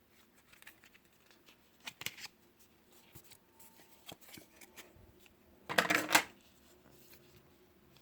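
Handling of a smartphone box and its cardboard packaging: scattered light taps and scrapes, with one louder scraping rustle about six seconds in.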